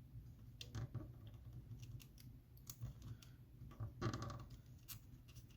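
Stretch-release adhesive strip being pulled slowly out from under an iPhone 7 Plus battery: faint, irregular crackling and clicking, with a louder crackle about four seconds in.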